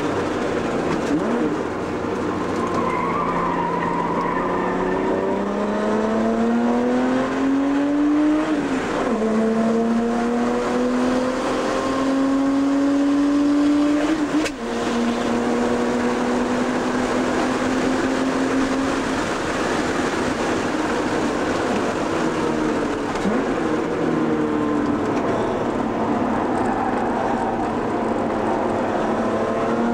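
Porsche engine heard from inside the cabin, driven hard on a race track: its pitch climbs, drops sharply at a gear change about eight seconds in, and climbs again. It settles lower around twenty seconds in as the car slows, then picks up again near the end.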